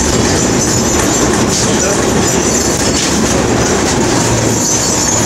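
Tram running along its track, heard from inside the car: a steady, loud rumble and rattle of steel wheels on the rails, with a few clacks.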